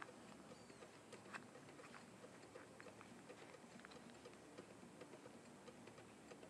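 Near silence: a faint hiss with scattered light clicks.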